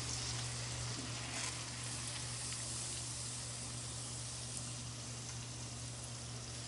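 Hot oil in a cast iron pan sizzling and bubbling steadily as sweet potato fries deep-fry in it.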